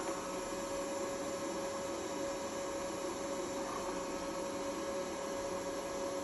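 Robot vacuum cleaner running on thick carpet: a steady motor and fan hum with one constant tone.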